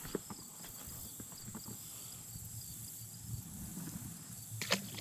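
Faint outdoor ambience: a steady high insect drone with a run of evenly repeated chirps, and a few light clicks, the sharpest near the end.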